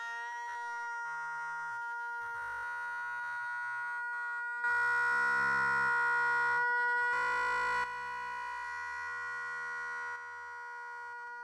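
A sustained electronic drone: a chord of several steady tones held without a break, with layers shifting. It grows louder from about four and a half to eight seconds in.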